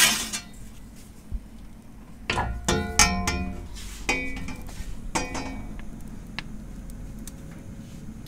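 Metal pizza peel scraping out from under a pizza on the oven's stone floor, followed by three bouts of ringing metallic clanks about two, four and five seconds in as the peel is handled and set down. Underneath, a low steady rush from the gas burner.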